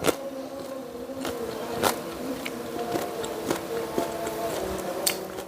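A steady buzzing hum, with a few sharp clicks scattered through it.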